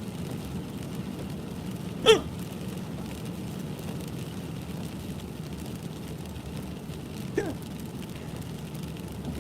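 Two hiccups from a man: a sharp, loud one about two seconds in and a fainter one about seven seconds in, over a steady low background noise.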